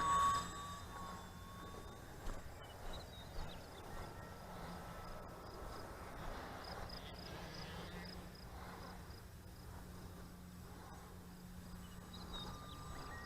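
Faint, steady motor drone of a small RC model airplane in flight, its pitch drifting slightly as it moves. Insects chirp in a quick, even rhythm.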